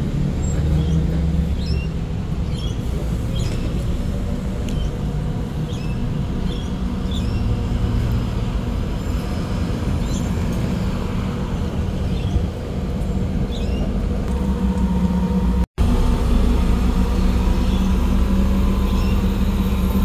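City bus engines: a Volvo B8RLE diesel bus running as it drives slowly past. After a brief cut-out about three-quarters through, a Mercedes-Benz OC500LE CNG bus engine runs as it pulls away. A steady engine hum throughout, with faint high chirps in the first part.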